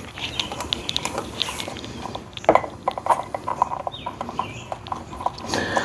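Light clicks and knocks of hand tools and metal hardware being handled, with one sharper knock about halfway through followed by a quick run of light clicks.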